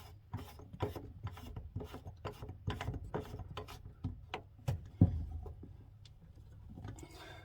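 Repeated scraping and clicking as the faucet spout's threaded trim piece is screwed down onto the sink, about two or three strokes a second, with one sharp knock about five seconds in, after which it goes quieter.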